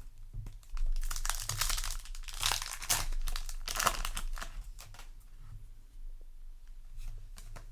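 Foil trading-card booster pack crinkling and tearing as it is opened by hand, busiest in the first few seconds, then quieter crackling handling.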